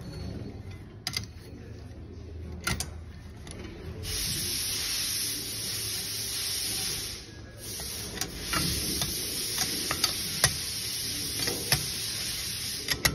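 Compressed air hissing steadily through a thin nozzle held to the cylinder head of a CS4 high-pressure compressor. It starts about four seconds in, breaks off briefly near the middle, then resumes until near the end. Scattered light clicks are heard throughout.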